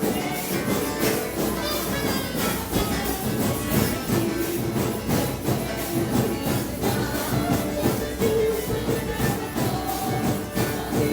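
Instrumental passage of a Brazilian worship song, with a drum kit keeping a steady beat over the backing music.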